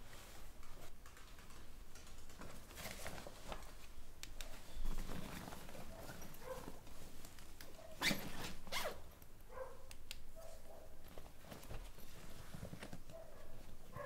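A backpack's zipper pulled open and the bag's contents rustling as a hand rummages inside, with louder scrapes about five and eight seconds in.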